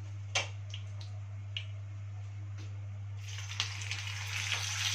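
Hot ghee and oil in a frying pan popping and spitting now and then. About three seconds in, a piece of duck goes into the fat and it breaks into a loud, steady sizzle.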